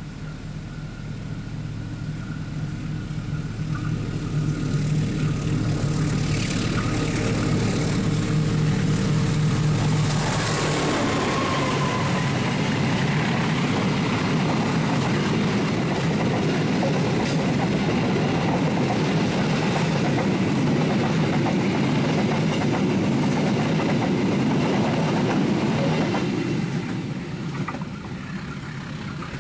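Diesel-electric passenger train passing close. For the first ten seconds the locomotive's engine grows louder as it nears. Then the steady rush of the coaches' wheels on the rails takes over and drops away a few seconds before the end.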